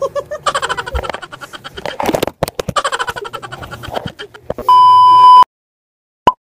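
People laughing with mouths full of marshmallows, with a few knocks around two seconds in. Near the end a loud, steady electronic beep sounds for under a second, followed by a short blip and then silence.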